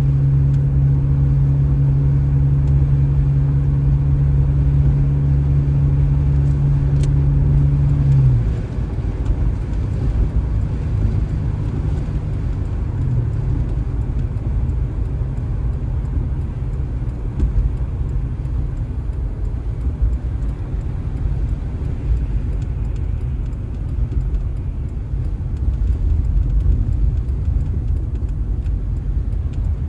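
Motor vehicle sound: a steady low hum with a steady tone runs for about eight seconds and cuts off suddenly, leaving a continuous low rumble.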